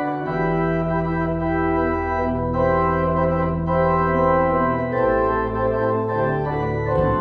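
Organ playing sustained chords, the harmony changing every second or two over long held bass notes: the closing organ music after the dismissal of a church service.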